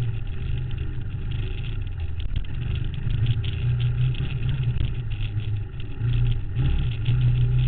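ATV engine running during a ride, with frequent short rattling clicks over it. The engine note dips briefly just before six seconds in and then picks up again.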